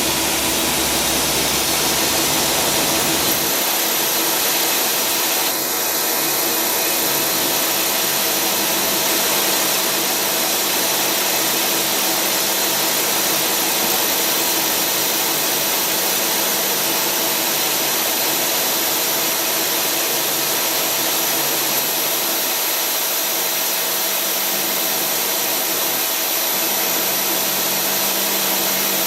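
Tsugami SS32 Swiss-type sliding-headstock CNC lathe running, a steady whirring hiss with several steady tones. A thin high whine comes in about three seconds in as a low hum drops away.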